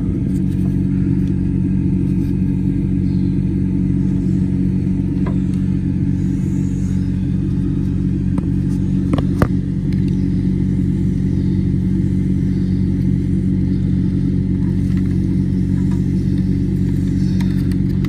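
Engine idling steadily, a low even hum, with a few light clicks about nine seconds in.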